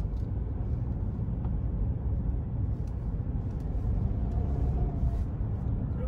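Steady low rumble of a moving car's road and engine noise, heard inside the cabin.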